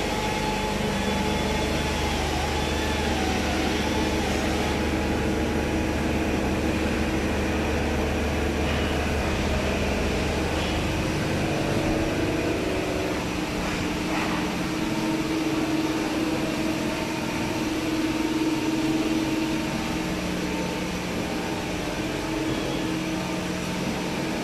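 Quaser HX-504BE CNC horizontal machining centre running with a steady mechanical hum. About halfway through, a low drone drops out and a steady mid-pitched tone grows stronger.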